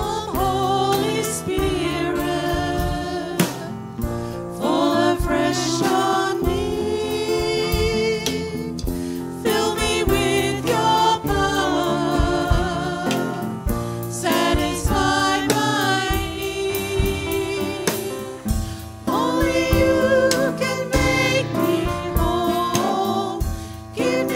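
A worship song performed live: several women's voices singing together over a drum kit and guitar.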